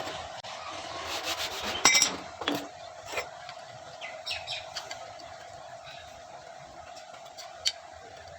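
Hand work on a small wooden handle and steel blade: scattered clicks, light knocks and short rubbing strokes, busiest in the first three seconds, with a lone click near the end, over a faint steady hum.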